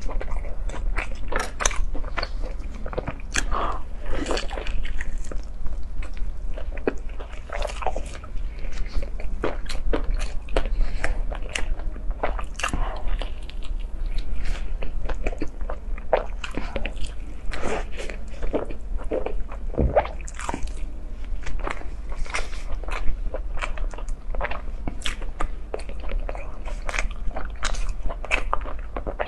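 Close-miked eating: a person biting and chewing soft, saucy food, with a dense run of short mouth smacks and clicks.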